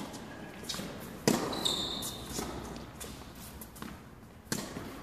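Tennis rally on an indoor hard court: several sharp strikes of racket strings on a tennis ball and ball bounces, each echoing briefly in the hall. The loudest strike comes just over a second in. A short high squeak follows it.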